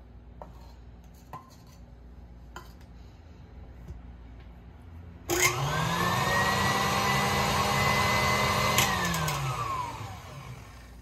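Electric stand mixer switched on with a click about five seconds in: its motor whine climbs quickly to a high, steady pitch and runs for about three and a half seconds. It is then switched off with a click and winds down, the pitch falling away. Before it, only a few small handling clicks.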